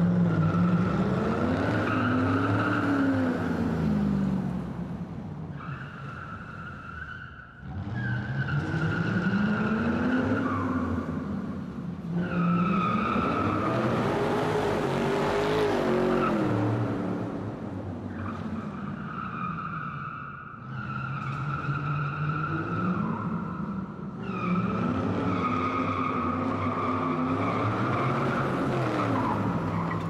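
Car tyres squealing in long continuous stretches: a steady high squeal over the car's engine, whose pitch rises and falls with the revs. The squeal breaks off briefly a few times, most clearly about seven and a half and twenty seconds in.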